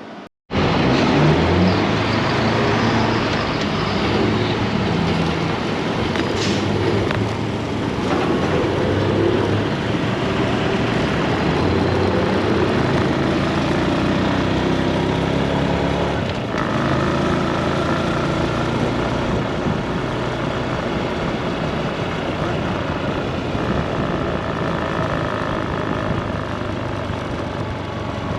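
Honda Super Cub motorcycle engine running under way, with wind and road noise. The engine note rises and falls with speed and changes about halfway through.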